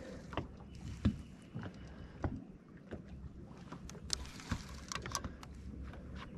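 Small waves lapping against the hull of a bass boat, with a steady low hum and scattered short knocks and clicks. A faint high whine comes in about half a second in and stops before the middle.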